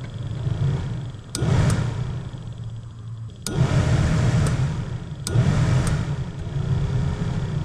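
Cab HVAC blower fan of a 2004 Chevy 2500HD being switched through its settings: switch clicks, with the fan's air rush jumping up suddenly about one and a half, three and a half and five and a half seconds in. The fan runs on each setting with a newly fitted blower motor resistor, the part that sets its speeds.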